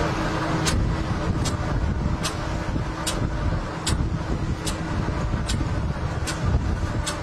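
Mil Mi-14 helicopter's turbine engines and rotors running while it floats on the sea, a dense low rumble with a sharp hiss repeating a little more than once a second. A steady whine runs underneath and stops about six seconds in.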